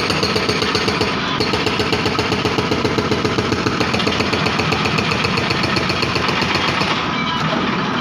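Hydraulic rock breaker on a 2011 JCB backhoe loader hammering concrete road surface in rapid, even blows, with the machine's engine running under it. The hammering breaks off briefly about a second in and eases near the end.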